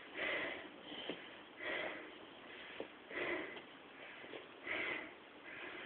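A person breathing hard, one noisy breath about every second and a half, out of breath from exertion.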